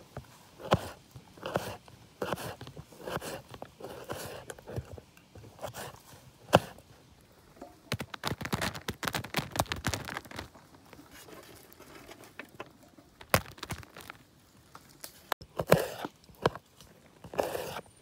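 Kitchen knife cutting raw carrots on a plastic cutting board: a run of crisp, uneven cuts and taps of the blade on the board. About eight to ten seconds in, a quicker flurry of light clatter as cut carrot sticks fall onto a banana leaf.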